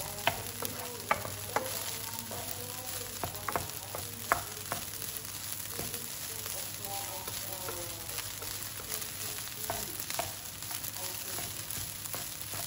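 Rice and onion frying in a non-stick pan, sizzling steadily while a wooden spoon stirs it. The spoon knocks sharply against the pan several times, mostly in the first five seconds, and a couple more times later.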